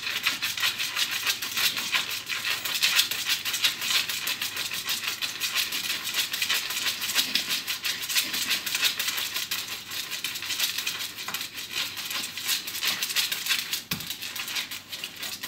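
Pug puppy's front claws scratching rapidly and without pause at the side of a wooden table as it digs at it: a dense, continuous run of quick dry scratches.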